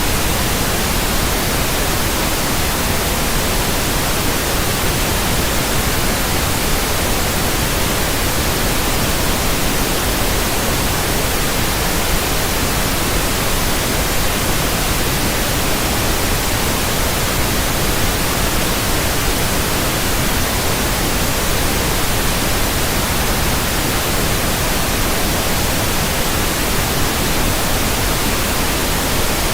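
Steady, loud static hiss with no changes or breaks.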